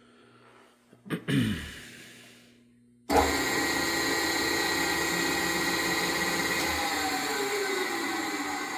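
Schneeberger Sculptor profile grinder switched on at its control panel. A short clunk comes about a second in, then the 220 V three-phase machine starts abruptly about three seconds in and runs steadily with a hum and a high whine. The low hum drops out at the very end.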